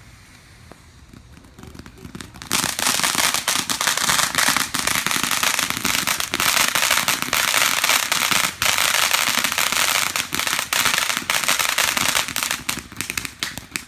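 Fireworks going off in a rapid, dense crackle of many small bangs, starting about two and a half seconds in and running for about ten seconds before thinning out.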